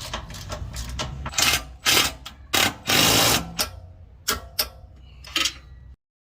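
A busy run of mechanical clicks and knocks with several short noisy bursts, the longest about two and a half seconds in, over a low rumble; it cuts off suddenly near the end.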